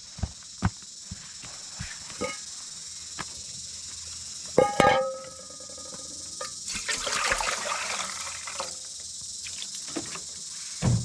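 Steady high-pitched insect drone from the surrounding jungle, with scattered light clicks and knocks of handling. About halfway there is one sharp knock with a brief ringing tone, and a stretch of rustling follows.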